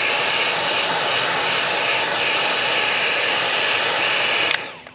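Electric heat gun blowing steadily as it shrinks heat-shrink tubing over a wire splice, then switched off suddenly about four and a half seconds in.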